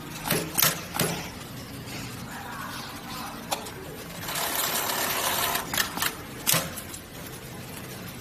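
Industrial leather pattern sewing machine at work: a low steady hum under a series of sharp clicks, with a rushing noise lasting about a second and a half near the middle.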